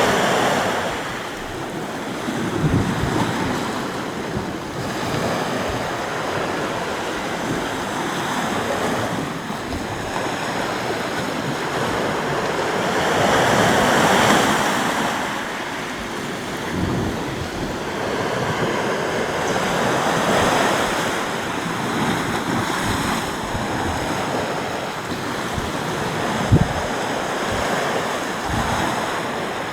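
Sea waves breaking and washing on the shore, swelling and fading in slow surges, with wind gusting against the microphone and a sharp low thump of wind buffeting near the end.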